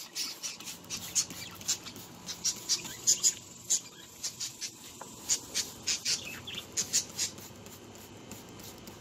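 Caged budgerigars chirping in quick, short high calls, about three a second, thinning out near the end.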